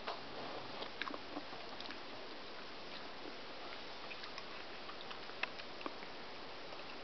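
Faint handling noise: a steady hiss with scattered small clicks and rustles, the sharpest click about five seconds in.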